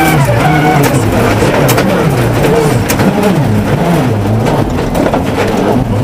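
Ford Focus WRC's turbocharged four-cylinder rally engine at full stage pace, heard from inside the cabin, its revs dropping and climbing again and again, about once a second. Gravel clicks and rattles against the car under the engine.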